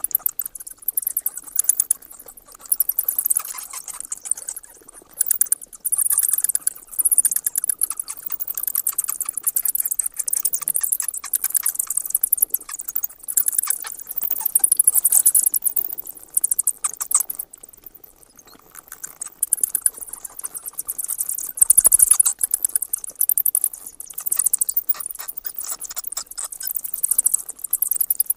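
Bats chattering: rapid, high-pitched clicking squeaks in bursts of several seconds, with a brief lull about two-thirds of the way through.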